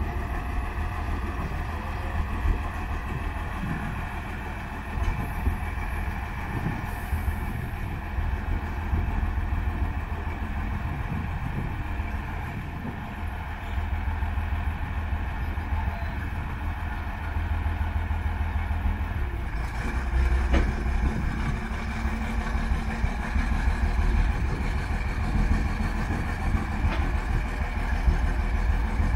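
Sterling Acterra crane truck's diesel engine running steadily at idle; its note changes and grows a little louder about two-thirds of the way in.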